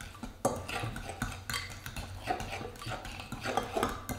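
A utensil stirring a creamy dressing in a glass bowl, clicking and scraping against the bowl in quick, irregular strokes.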